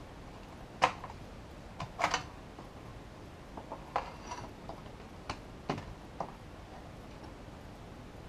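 Metal front panel and chassis of a Behringer Ultragain MIC2200 preamp being handled and set down, giving a scattered series of light clicks and metallic knocks. The sharpest come about one and two seconds in.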